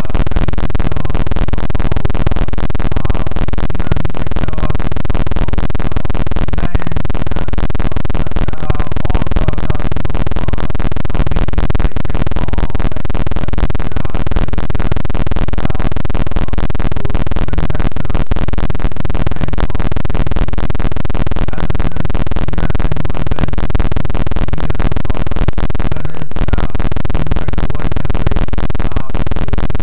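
Loud, unchanging digital noise that cuts in abruptly and fills the whole range with a dense, fast-repeating texture: the call's audio has broken down into garbled noise in place of the speaker's voice.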